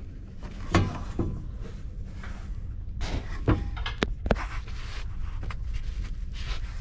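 Gloved hands handling insulated pipes and armoured cables: scattered knocks, clicks and rustles, most of them about three to four and a half seconds in, over a steady low hum.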